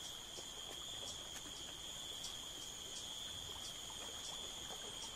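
Steady, high-pitched drone of insects, with faint ticks now and then.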